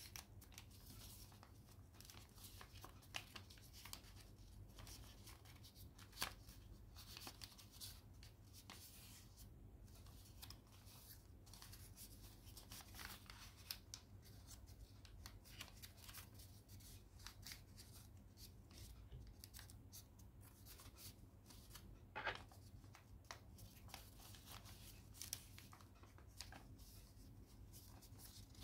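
Faint rustling and crinkling of a sheet of origami paper being folded and creased by hand. Scattered small crackles run through it, with sharper crinkles about six seconds in and again about twenty-two seconds in, over a faint steady low hum.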